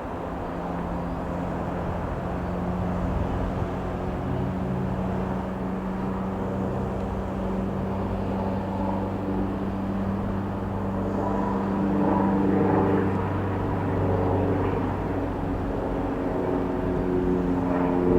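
Robin DR400-180 light aircraft's four-cylinder piston engine and propeller droning steadily in flight, growing louder with a higher engine note about twelve seconds in and again near the end.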